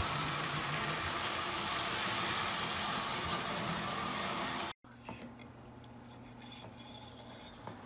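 Lionel U.S. Steel 8350 switcher locomotive pulling its freight cars around O-27 tubular track in reverse: a steady electric-motor hum with wheel rumble. It cuts off abruptly a little under five seconds in, then resumes more quietly.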